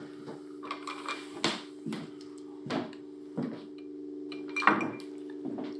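Dentures clinking against a small glass bowl and clicking wetly as they are pushed into the mouth: a string of irregular sharp clicks, the loudest near the end, over a steady low hum.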